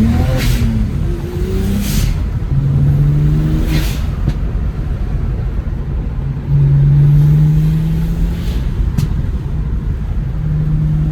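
BMW 335xi's tuned N54 twin-turbo inline-six engine and exhaust under hard driving: the revs drop at a gear change right at the start, then the engine pulls at fairly steady revs in stretches. A few short sharp cracks come through, over steady road rumble.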